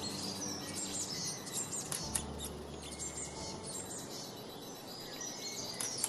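Eurasian blue tit calling: a run of short, high chirps and quick notes sliding down in pitch, with a couple of sharp clicks.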